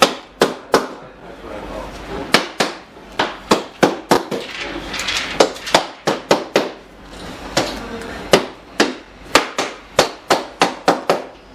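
Repeated sharp knocks or taps, irregular and coming faster toward the end, with faint voices underneath.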